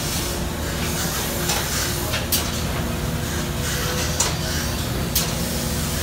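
Steady hum of running sawmill machinery, with three short sharp hisses.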